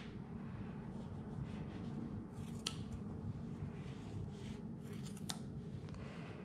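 Scissors snipping through thick angora rabbit wool: soft cutting and rustling of the fleece, with two sharper snips, a little before the middle and again about two-thirds through, over a low steady room hum.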